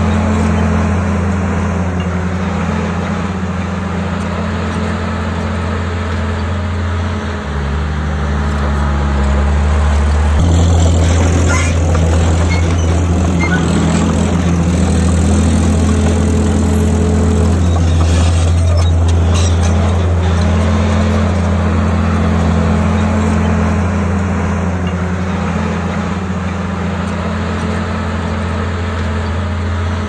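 Komatsu D51PX crawler bulldozer's diesel engine running steadily with a deep hum, its note shifting about 7 and 10 seconds in as the load changes. Scattered clicks and rattles come between about 11 and 20 seconds in.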